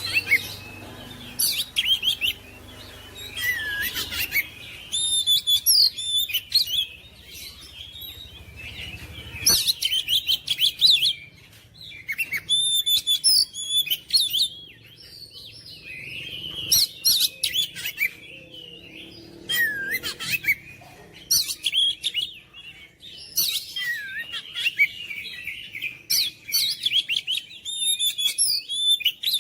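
Oriental magpie-robin (kacer) singing hard and insistently. Bursts of rapid, varied whistles and chirps come in phrases of a second or two, with short pauses between them.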